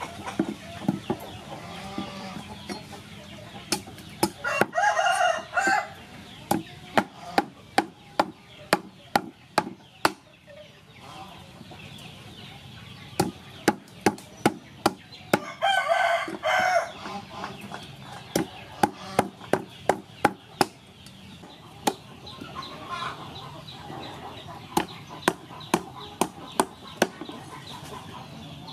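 Cleaver chopping ginger on a wooden chopping block: runs of sharp knocks about two a second, in several bursts. A rooster crows twice along the way, about a second each time.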